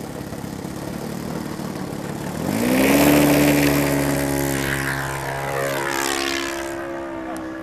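Engine of an RC aerobatic model airplane throttling up for takeoff: its note climbs sharply about two and a half seconds in and is loudest just after. The pitch then slides down and the sound fades as the plane climbs away.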